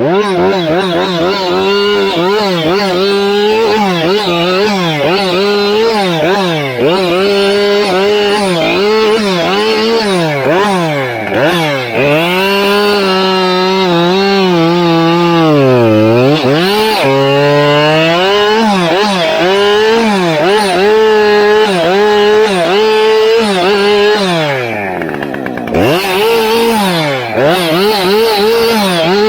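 Chainsaw running at high revs through wood, its pitch wavering up and down constantly under the changing load. The revs drop sharply twice, about halfway through and again near the end.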